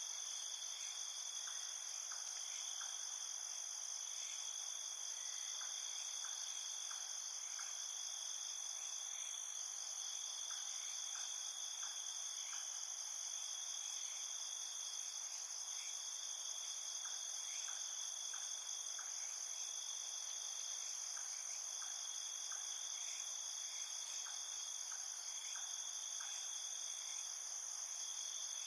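Chorus of night insects: several steady high-pitched trills at different pitches, unbroken throughout, with short fainter chirps coming in small groups every few seconds.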